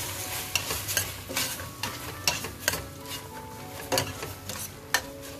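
Metal spoon stirring tuna and chopped green chillies in a stainless steel pot, scraping and clinking against the pot about twice a second, over a light sizzle of the frying mixture.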